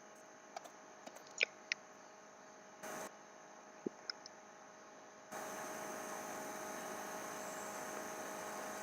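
Low steady electrical hum and hiss from the recording setup, with a few faint short clicks in the first half. The hiss steps up in level about five seconds in.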